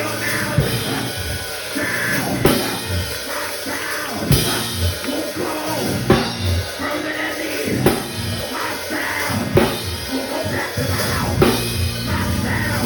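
Live church band music driven by a drum kit, with strong accented hits about every two seconds over sustained bass and keyboard notes.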